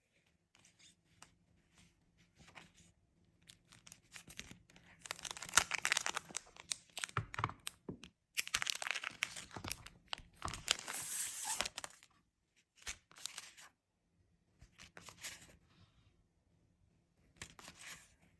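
Paper rustling and tearing while red envelopes are being prepared: a few soft handling clicks at first, then two long spells of dense rustling and tearing near the middle, and a few short rustles afterwards.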